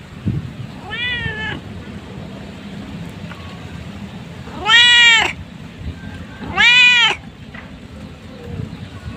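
Cat meowing three times: a soft meow about a second in, then two loud, longer meows in the middle, each rising and falling in pitch.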